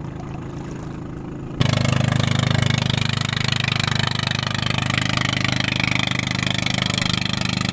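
Small boat engine running steadily. About a second and a half in it abruptly becomes much louder and stays at a steady run, with a rushing hiss of water and wind over it.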